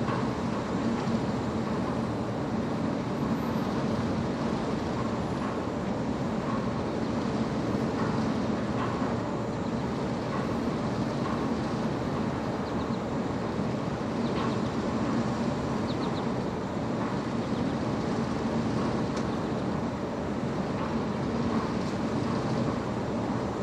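Diesel engine of a rail vehicle running steadily, with a strong low hum and no change in speed.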